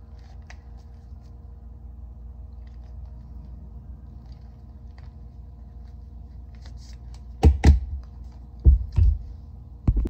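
Hands handling a wallet and a plastic Swiss Card, working the card back out: faint small clicks and rustles over a steady low hum, then several heavy knocks and thumps in the last few seconds.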